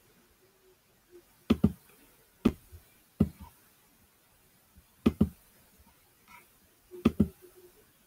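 A few sharp knocks or thuds, several of them in quick pairs, spaced one to two seconds apart in a quiet room.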